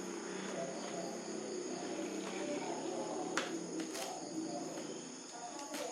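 Sharp plastic clicks, about three and a half seconds in, again at four seconds and near the end, as the bottom cover of an HP laptop is pried loose around its edge, over a steady high-pitched ringing.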